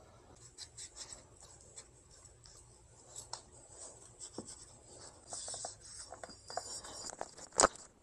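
Faint rubbing and light scuffing of a cloth wiping down an electric scooter's swingarm, with one sharp click near the end.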